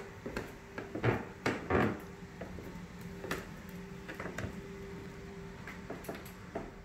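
Footsteps coming down a flight of stairs and onto a hardwood floor: a string of soft thumps and knocks, the loudest a second or two in, over a faint steady hum.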